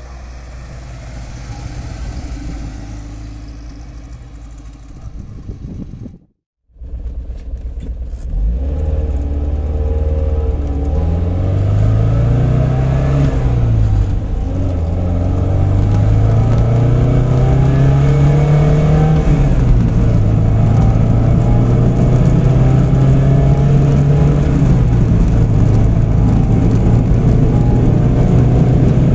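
1978 Alfa Romeo Spider 2000's twin-cam four-cylinder engine, first as the car drives past and then heard from inside the cabin while it is driven. The engine note climbs and falls back about three times as it goes up through the gears, then runs steadily.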